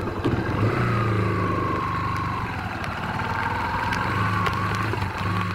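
Single-cylinder 150 cc Yamaha motorcycle engine under way, pulling as the bike picks up speed from low speed, heard from the rider's seat.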